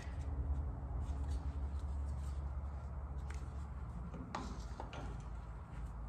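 A few light clicks and knocks of aluminum sheet being handled and bent on a hand bender, over a low steady hum that drops away about four seconds in.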